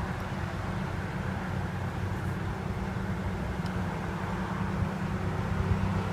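Mercedes-Benz SL550's engine idling with a steady low hum.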